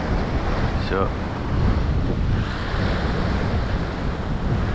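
Ocean surf washing and breaking against the jetty's rocks, with wind rushing over the microphone.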